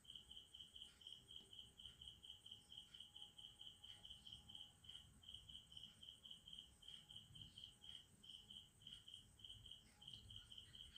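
Near silence, with a cricket chirping faintly and steadily at about four high-pitched pulses a second.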